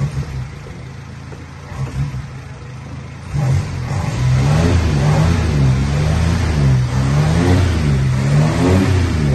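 1938 Austin Big Seven's four-cylinder side-valve engine idling, then from about three seconds in revved up and down repeatedly, each blip rising and falling in pitch.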